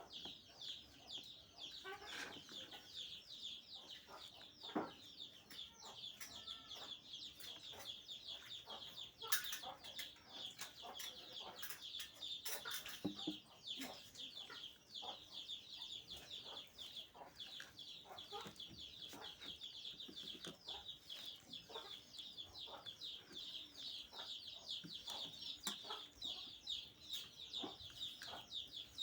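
A crowd of chicks cheeping in a dense, continuous chorus of quick, high, down-sliding peeps. A few sharp knocks sound now and then.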